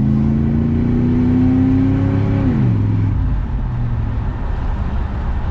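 The 1993 Caprice wagon's 305 small-block V8 pulls with its pitch slowly rising, then drops sharply about two and a half seconds in. After that its steady note gives way to a rougher low rumble.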